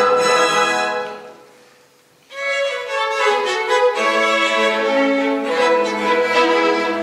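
Chamber orchestra led by violins playing a late-18th-century symphony. The music dies away about a second in to a brief pause, then the strings come back in at about two and a half seconds and play on.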